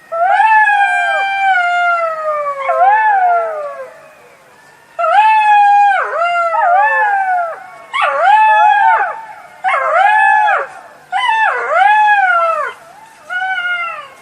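Jackal howling: one long falling wail, then a run of shorter calls that each rise and fall in pitch.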